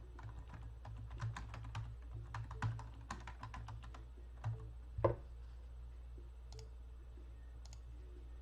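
Typing on a computer keyboard: a quick run of key clicks for about four seconds, then one louder knock about five seconds in and only a few scattered clicks after.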